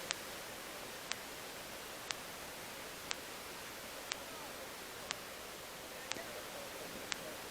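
A steady hiss with a short, sharp tick exactly once a second, evenly spaced like a clock.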